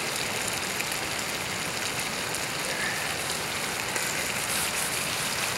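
Steak and onions sizzling in a skillet on a canister gas stove, the burner just turned down a little: a steady frying hiss, with a few spits of grease near the end.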